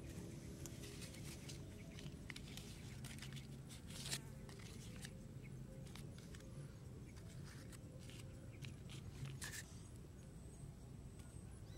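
Faint handling sounds of food and leaves being set out by hand, with a few sharp clicks, the clearest about four seconds in and near the ten-second mark, over a low steady background hum.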